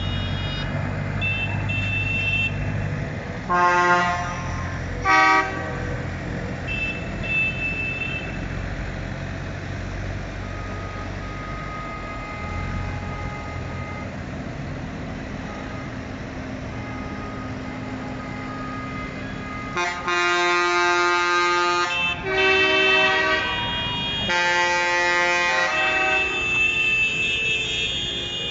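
Convoy of farm tractors driving past, their diesel engines running, with horns honking: two short blasts a few seconds in, then a run of long, louder horn blasts near the end.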